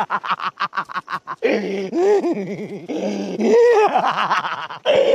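A person laughing: a fast run of short 'ha's for about a second and a half, then long laughs that swoop up and down in pitch.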